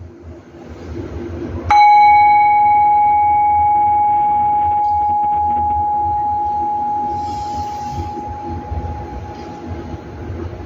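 A Buddhist bowl bell struck once a little under two seconds in, ringing with one clear tone and fainter higher overtones that fade slowly over about eight seconds. A steady low hum runs underneath.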